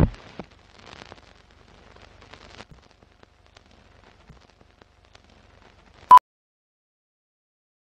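Film-countdown leader sound effects: a low boom dying away at the start, then faint crackle and scattered ticks like old film, and a single short mid-pitched beep about six seconds in.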